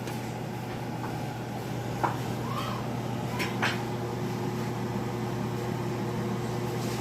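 Steady hum of a running kitchen appliance, with a second steady tone joining about halfway through. A few light clicks and taps come in the first half.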